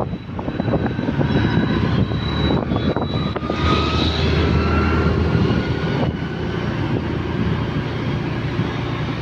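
A motor two-wheeler being ridden along a road: steady engine drone with wind rushing on the microphone, and a faint whine that rises slightly about four seconds in.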